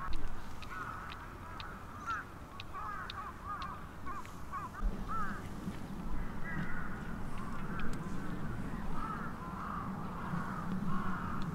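A flock of birds calling, many short rising-and-falling calls overlapping one another throughout. A low steady hum joins in about five seconds in.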